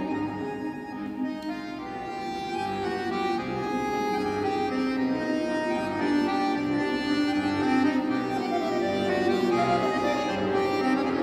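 Solo accordion playing: sustained chords and a moving melody over pulsing bass notes, growing gradually louder.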